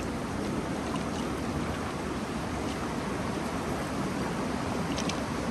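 Steady rush of water at a river sluice weir, with a couple of faint ticks near the end.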